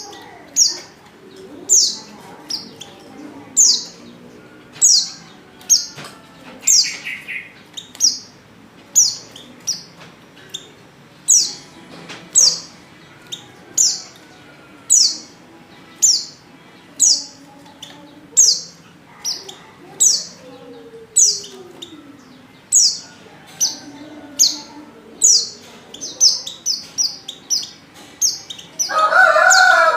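Female white-eye (pleci) lure call: a short, high, falling chirp repeated steadily, roughly every three quarters of a second. A louder, lower call breaks in near the end.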